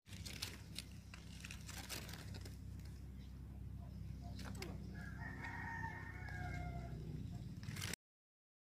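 A rooster crowing once, one long call of about two seconds starting about five seconds in and falling slightly in pitch at the end. Before it come scattered rustling clicks over a low rumble, and all sound cuts off suddenly near the end.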